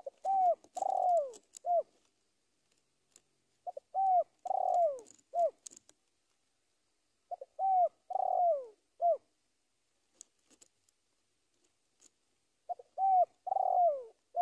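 Spotted dove (tekukur) cooing: four phrases a few seconds apart, each two short coos, a longer coo falling in pitch, then one more short coo. It is the call used to challenge and draw in a rival.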